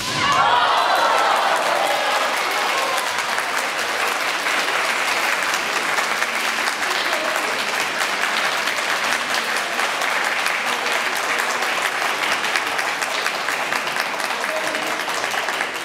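Audience applauding steadily in a gymnasium for the deciding point of a kendo bout, with a brief burst of shouting voices at the very start.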